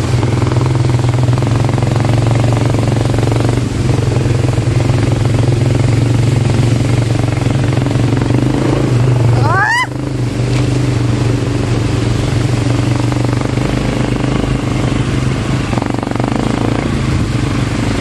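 ATV (quad bike) engine running steadily under way on a rough dirt trail. About halfway through, a short rising squeal or whistle cuts across the engine sound.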